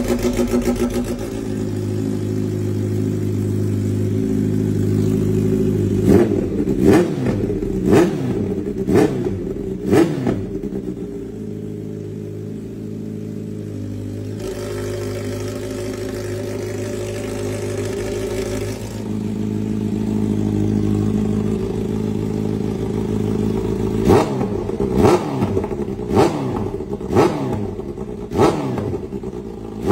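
Kawasaki H2's supercharged inline-four idling through an aftermarket slip-on silencer held onto the open link pipe, with a run of short throttle blips about six seconds in and another quicker run from about 24 seconds. Between the runs the idle tone changes twice.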